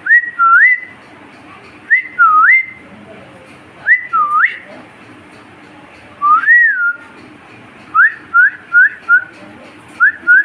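A person whistling a repeated call to a pet parrot: a sliding note that dips and swoops back up, about every two seconds. Near the end it turns into a quick run of short rising whistles.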